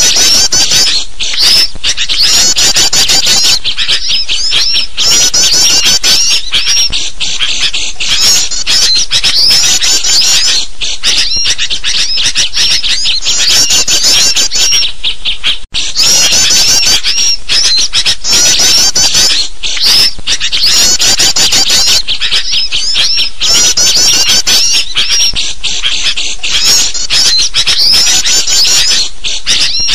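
Dense, loud chorus of agitated chattering calls from sooty-headed bulbuls mixed with small songbirds, a bird-luring call track. The calls overlap without pause, broken only by a split-second gap about halfway through.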